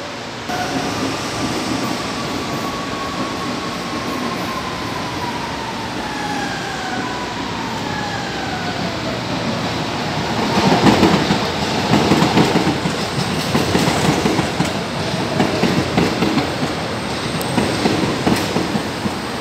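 São Paulo Metro Line 3 electric train running past: a faint whine slides down in pitch over several seconds, then from about halfway the train passes close, its wheels clattering rhythmically over the rail joints, louder than before.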